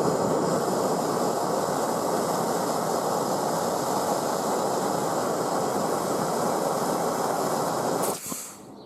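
Blowtorch flame running steadily as it heats a Zippo lighter's brazed-on emblem to free it, then shut off about eight seconds in.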